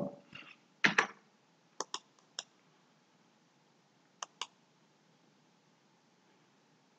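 Computer mouse clicks: a louder pair about a second in, another pair and a single click soon after, and a last pair near the middle.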